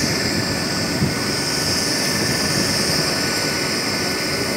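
Turbine helicopter running on the ground with its rotor turning: a steady high turbine whine over the rotor and engine noise.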